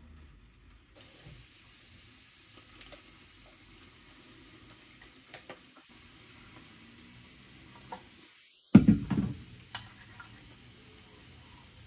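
Quiet background hiss with a few scattered small clicks, and a brief clatter of several knocks about three-quarters of the way through.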